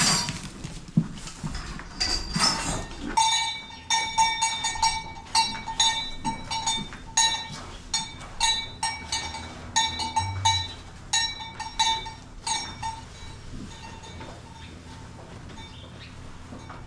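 Repeated ringing metal clanks, about two a second at the same pitch, for some ten seconds and then stopping, while dairy cows are let out of the barn. Livestock calls come in the first few seconds.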